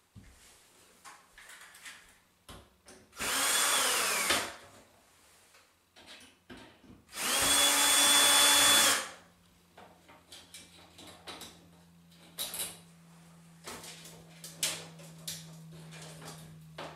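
Cordless drill run at speed in two bursts, about a second and then about two seconds long, its whine falling away as the trigger is released. Faint clicks and knocks follow.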